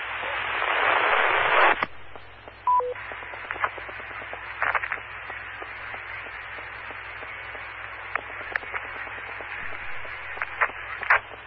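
Amateur radio repeater audio: loud static hiss that cuts off sharply about two seconds in, followed by the repeater's short two-note courtesy beep stepping down in pitch. Then a quieter hiss with scattered clicks from a keyed-up transmission carrying no voice, which net control hears as a station with no audio.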